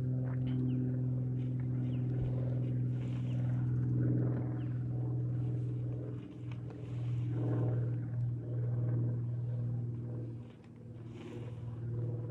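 Boat motor running with a steady low hum, dipping briefly about six and ten seconds in.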